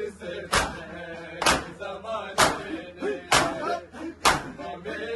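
Matam: a group of bare-chested men striking their chests with open palms in unison, five sharp slaps about a second apart. Between the slaps a male voice chants a nauha, an Urdu lament.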